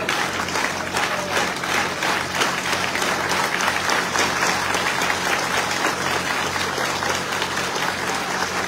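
A large crowd applauding, with steady, dense clapping, over a low steady hum.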